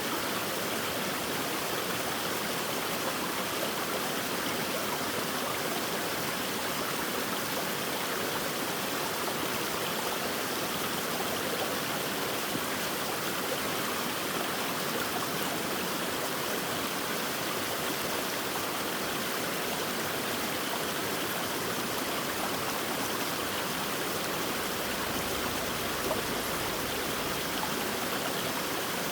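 Mountain valley stream, its water running in a steady, even rush with no breaks.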